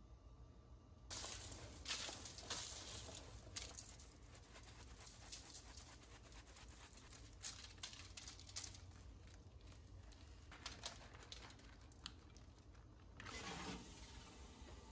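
Faint kitchen handling sounds: aluminium foil on a baking tray crinkling and rustling with many small ticks as hands toss and season asparagus on it, with a louder rustle about 13 seconds in as the tray goes into the oven.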